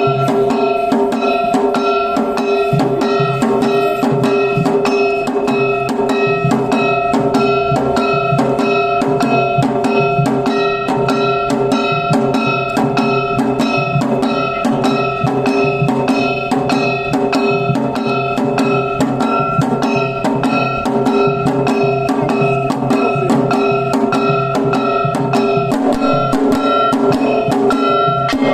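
Kagawa lion dance accompaniment: drums struck in a fast, steady rhythm of about three strokes a second, with a metal gong or bell ringing on over them.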